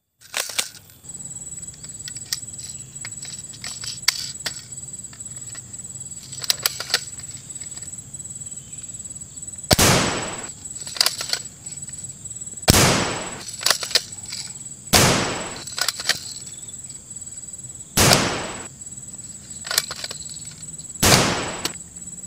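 Cobra 308 toy sniper rifle fired five times, a few seconds apart, each a sharp bang with a short fading tail. A steady high-pitched whine and scattered small clicks run underneath.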